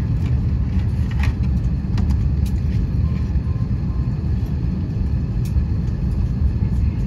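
Steady low rumble inside an Airbus A321 cabin parked at the gate before pushback, the air-conditioning and ventilation noise of the aircraft, with a few faint clicks.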